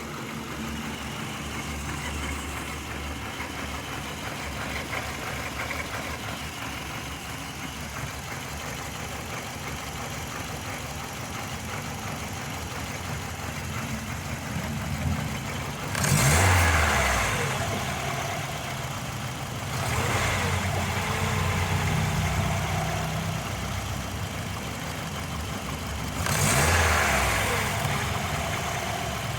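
The 2005 Hyundai Matrix's four-cylinder engine running, which carries a cylinder 2 misfire code (P0302). Its sound swells louder three times: about halfway through, a few seconds after that, and near the end.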